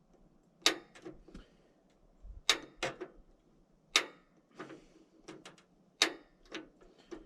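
A series of sharp clicks and light knocks at irregular intervals, about one or two a second, with quiet between them.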